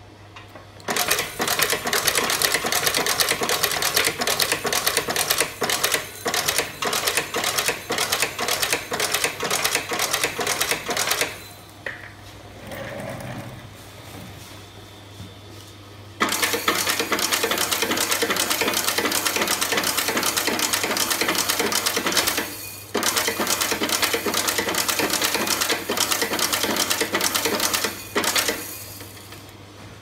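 Automatic prong snap button machine running with a fast, dense mechanical clatter. It starts about a second in, stops about 11 seconds in, starts again about 16 seconds in, breaks off briefly near 23 seconds and stops a little before the end.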